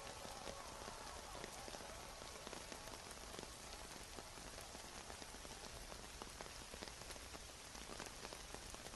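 Steady rain: a soft, even hiss dotted with the ticks of many individual drops.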